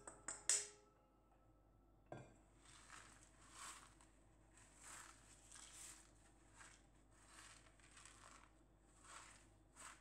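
A few sharp clinks of a spoon against a steel mixing bowl as raw granola mix is tipped out, then soft rustling swishes, roughly one a second, as the oat-and-nut mix is pushed and spread by hand across a baking tray.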